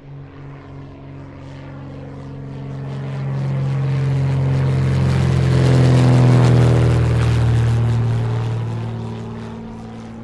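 Light single-engine propeller airplane, a 1959 Cessna 150 with its four-cylinder Continental O-200 engine, flying past: a steady propeller-engine drone that grows louder to a peak about six seconds in, then fades away.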